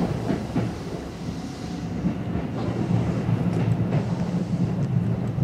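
Seibu 101-series electric train heard from the cab, running slowly alongside a station platform: a steady low hum and rumble that grows somewhat louder about two seconds in, with a few light wheel clicks over the rail joints.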